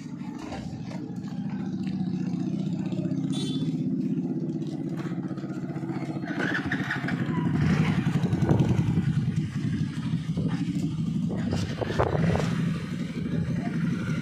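Motorcycle engine running at the fuel pump with a steady low putter, growing louder for a few seconds past the middle.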